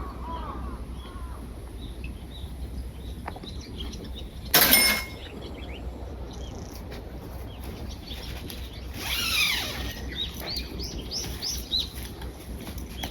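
Small birds chirping repeatedly, with a louder burst of calls about nine seconds in. A brief loud noise cuts through about four and a half seconds in.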